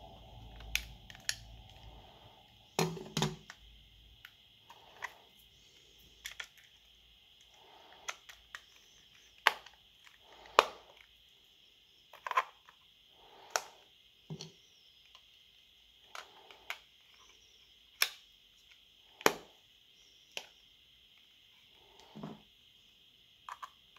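Irregular sharp clicks and knocks of the plastic case and battery of a Garmin Alpha 100 handheld GPS being handled and fitted back together, with a small screwdriver working on the back-cover screws near the end.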